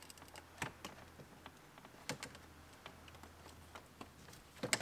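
A few light, scattered clicks and knocks of plastic interior trim being handled and fitted at a car's center console, the loudest knock near the end.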